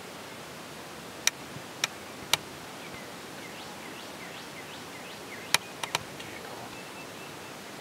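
Open-field ambience: a steady hiss with small birds chirping faintly from about three seconds in. Six sharp clicks are heard, three spaced about half a second apart early on and a quick cluster of three a little before the end.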